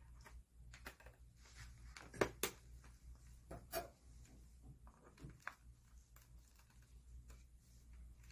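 Faint clicks and taps of a small screwdriver on the screws and plastic casing of an LED face mask as it is being unscrewed, with a few sharper clicks about two to four seconds in, over a low steady hum.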